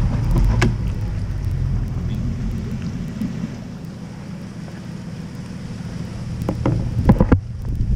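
Outboard motor of a bass boat idling with a steady low hum that fades over the first few seconds as the boat sits on its trailer. A few sharp knocks near the end.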